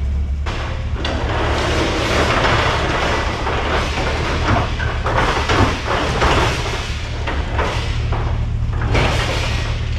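Continuous rattling and scraping noise with frequent knocks, over a steady low hum.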